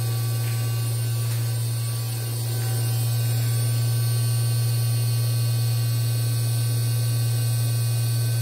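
Steady, loud low electrical hum with faint higher steady tones above it, from a running 5 kVA 400 Hz static frequency converter and the aerospace oven it powers.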